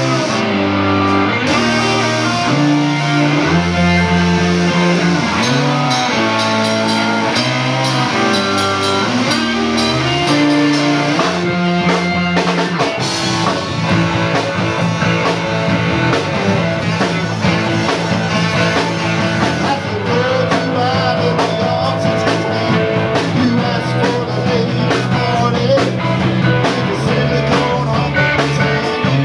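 Live rock band playing with electric guitars, bass, keyboard, drums and a singer. Slow, held bass and guitar notes at first, then the band settles into a steady driving beat about thirteen seconds in.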